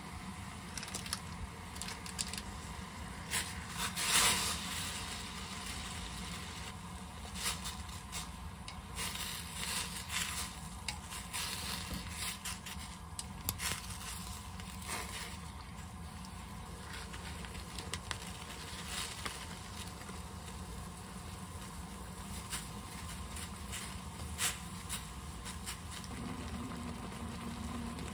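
Udon noodles cooking in a clay donabe pot: water bubbling at the boil while the noodles are stirred with wooden chopsticks, giving scattered taps and scrapes, with one louder rush about four seconds in. A steady low hum runs underneath.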